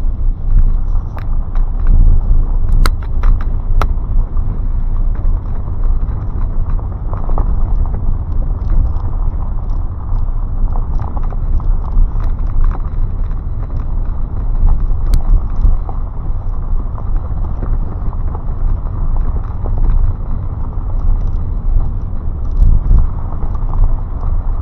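Car driving along a road: a steady low rumble of engine and tyre noise, with a few sharp clicks or knocks about three to four seconds in and again about fifteen seconds in.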